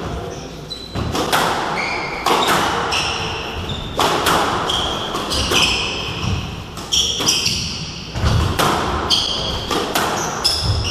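Squash rally: the ball cracking off rackets and the court walls about every second or so, with sneakers squeaking in short high chirps on the wooden floor between the shots.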